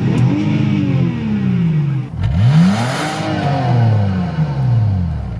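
A car engine free-revving twice with the car in park: each time the pitch climbs quickly and then falls back slowly. The second rev starts sharply after a brief break about two seconds in.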